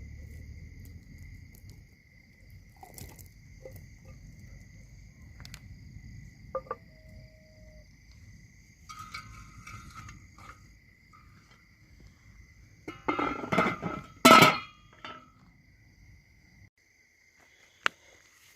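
Crickets trilling steadily in one high, even tone over a low rumble. About 13 to 15 seconds in, a loud pitched sound rises over them, and a single sharp click comes near the end.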